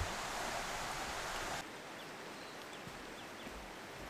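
Forest ambience: a steady rush like running water cuts off sharply about one and a half seconds in, leaving quieter background with a few faint, short high chirps of small birds.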